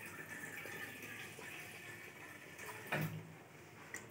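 Mostly faint background hiss; right at the end, water starts pouring from a plastic bowl into a pot of thin dal, splashing into the liquid.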